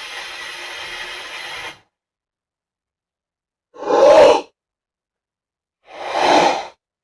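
Film sound-effect clips: a steady hiss cuts off suddenly, and after a gap of silence come two short, breathy gasp-like exhalations, the first louder.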